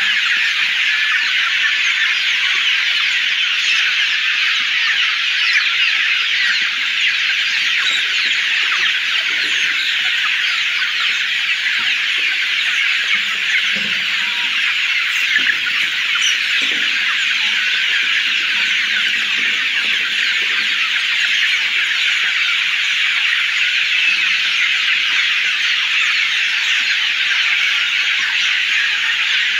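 A large crowded flock of chickens calling all at once: a dense, steady chorus of many overlapping high peeps and chirps.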